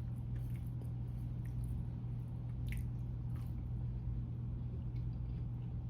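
A person chewing and biting into crispy pancakes with nuts in them, with a few faint crunches, over a steady low hum.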